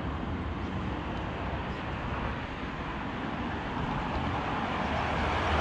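Steady highway traffic noise, a continuous rumble and hiss of passing vehicles, growing slightly louder near the end.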